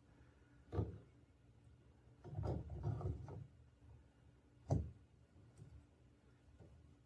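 Hard objects being handled and set down: a sharp knock about a second in, a run of clattering knocks a little later, and another sharp knock near the end.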